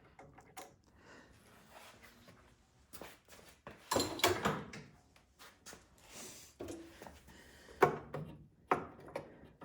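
Scattered clinks and clatter of hand tools and metal parts as the carburetor mounting bolts on a snowblower engine are worked loose with a socket wrench.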